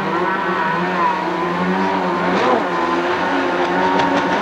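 Two-stroke stand-up jet ski engines running on the water, their whine rising and falling as the riders throttle through turns and across the chop.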